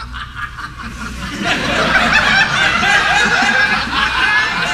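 Audience laughing, starting thinly and swelling into loud laughter from many people about a second and a half in.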